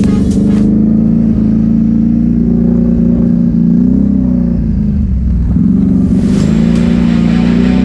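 Straight-piped Can-Am ATV engine running at steady revs; the revs drop off about four to five seconds in, then pick back up.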